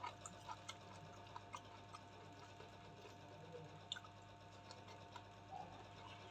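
Quiet eating sounds: scattered faint clicks of chewing and mouth sounds, most of them in the first second, over a steady low electrical hum.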